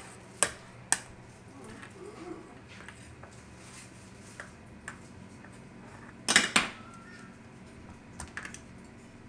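Wooden spoon knocking and scraping in a mixing bowl: two sharp knocks in the first second, a few light taps, and a louder clatter of several knocks about six seconds in.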